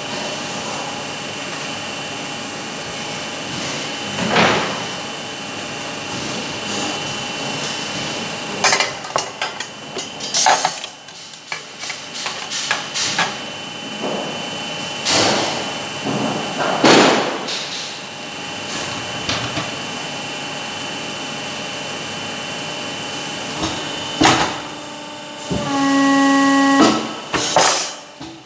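Steel wire rods clattering and knocking against each other and the bench as they are handled, over a steady workshop machinery hum. Near the end a steady pitched tone sounds for about a second and a half.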